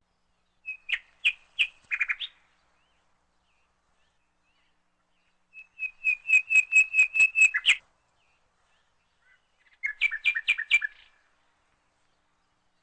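Bird chirping in three quick bursts of rapid, repeated high notes, each burst a second or two long, with silence between them.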